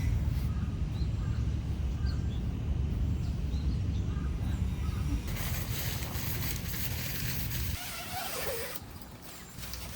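Outdoor ambience: a steady low rumble that cuts off suddenly about eight seconds in, with faint, scattered bird chirps.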